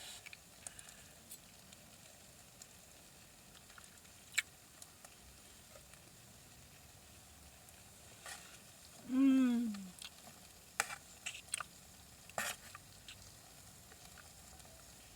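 Faint sizzling of chicken cooking in a 12-volt Roadpro roaster, with scattered sharp clicks and taps of utensils. About nine seconds in, a short hummed "mmm" falling in pitch as the chicken is tasted.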